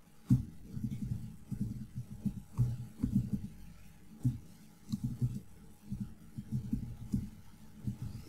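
Computer keyboard typing, heard as dull, irregular low thumps in small clusters, a few keystrokes a second.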